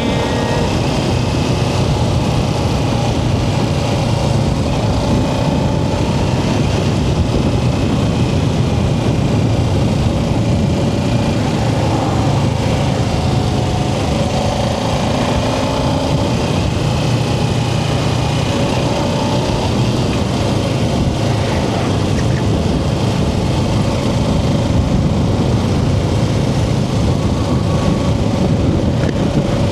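Kawasaki Ninja 650's parallel-twin engine running steadily as the motorcycle is ridden, a constant low rumble under a rush of noise, its pitch shifting slightly now and then.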